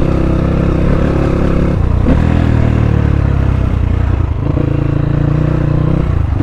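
Dirt bike engine running while riding over a rough gravel road, its note shifting about two seconds in and again a little past four seconds.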